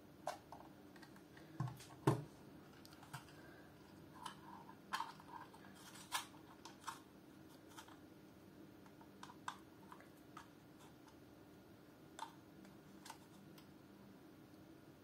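Scattered small plastic clicks and taps from handling a BT-168 battery tester, its spring-loaded red slider and an AA battery being fitted into it. The loudest click comes about two seconds in, and the clicks die away near the end.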